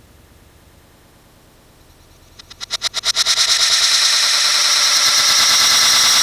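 Small solid-fuel rocket motor on a static test stand lighting: a rapid string of sputtering pops, about ten a second, for under a second, then a steady loud hiss of the exhaust jet from about three seconds in.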